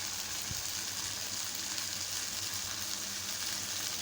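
Stir-fry sizzling steadily in hot oil in the pan, with one faint knock about half a second in.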